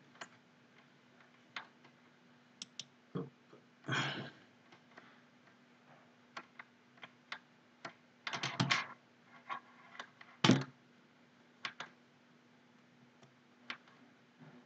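Irregular, scattered clicks of a computer keyboard, with a quick run of several keystrokes a little past halfway and a sharper click soon after, over a faint steady hum.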